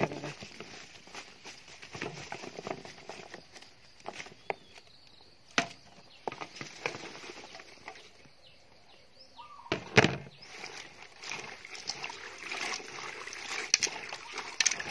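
Handling sounds as a heap of sesbania flowers is tipped from a plastic tray into a steel pot and pressed down by hand: soft rustling with scattered clicks and knocks of the tray and pot, the loudest knock about ten seconds in.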